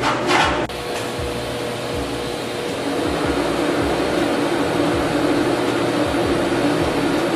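TIG welder running on a stainless-steel exhaust pipe: a steady hum with a hiss over it, getting louder about three seconds in. A short hiss in the first second cuts off suddenly.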